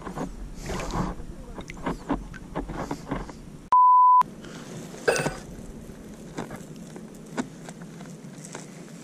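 Water splashing and sloshing as someone wades through shallow seawater, broken about four seconds in by a single steady edited-in beep tone lasting about half a second, the loudest sound, with everything else cut out under it. After it come quieter scattered splashes and steps.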